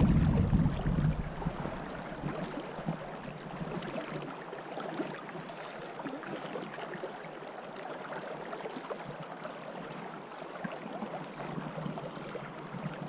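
A river channel flowing steadily with an even rush of running water. Wind buffets the microphone with a low rumble at the start, dying away within the first second or two.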